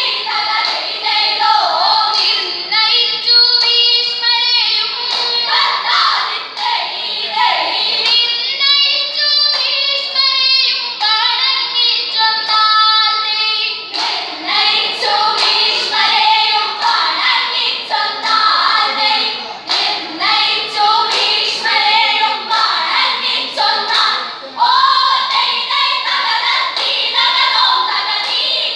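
A group of schoolgirls singing vanchipattu, the Kerala boat song, together in chorus.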